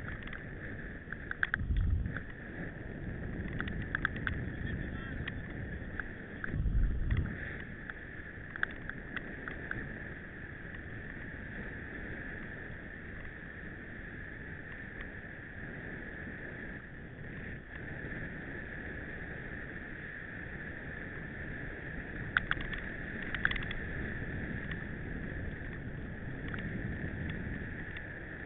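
Mountain bike being ridden over rough ground: steady rolling noise from the tyres and bike. Bursts of rattling clicks and a couple of low thumps come from bumps.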